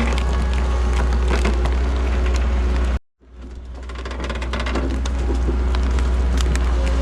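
Heavy-equipment diesel engine running steadily with a deep drone and scattered ticks and clanks. It cuts out abruptly about three seconds in and fades back up over about a second.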